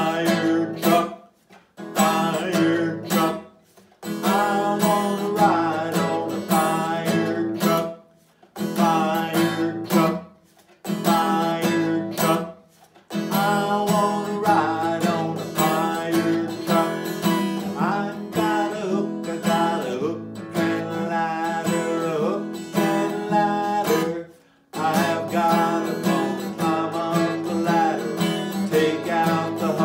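Man singing a children's song to a strummed acoustic guitar. The music stops short several times for a moment before starting again.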